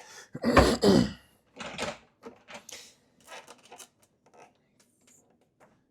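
Clatter and scraping of hand tools and metal parts on a lawn mower while a fastener is put into the loose oil plug. A louder clunk comes about a second in, then short clicks that thin out after about four seconds.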